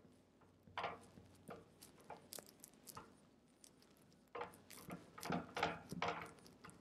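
Dry-erase marker writing on a whiteboard: faint, short strokes, sparse at first and coming closer together in the last two seconds or so.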